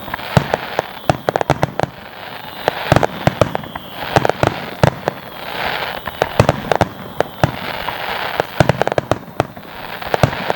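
Aerial fireworks bursting in quick, irregular succession: many sharp bangs and crackles, with a faint whistle now and then.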